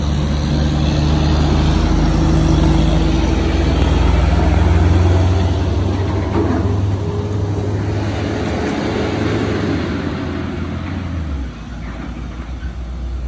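Heavy diesel vehicles passing close by: a Mercedes-Benz OH 1626 coach and then a fuel tanker truck, their engines a loud low drone with tyre noise. The drone is loudest in the middle and drops away about eleven and a half seconds in.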